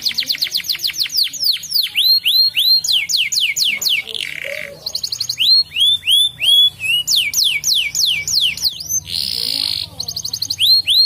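Domestic canary singing a fast song of repeated phrases: rapid runs of steeply falling whistled notes, switching to a new phrase every second or two, with short harsh buzzy notes about four seconds in and again about nine seconds in.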